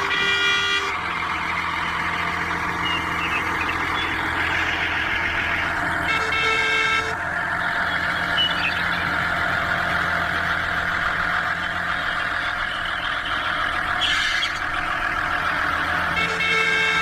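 A mini tractor's motor running steadily, with its horn tooting three times, each toot about a second long.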